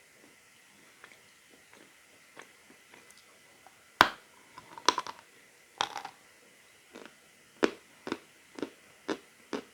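Biting into a piece of edible chalk with a sharp snap about four seconds in, then crunching it and chewing, about two crunchy chews a second near the end.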